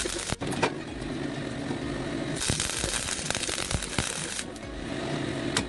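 MIG (wire-feed) welder crackling as it lays a weld on a steel go-kart frame: a short burst ending just after the start, then a second, longer run of about two seconds from roughly two and a half seconds in.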